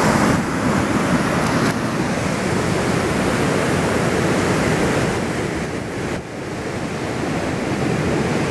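Ocean surf breaking and washing up a sandy beach, a steady rushing noise with wind on the microphone; the level drops briefly about six seconds in.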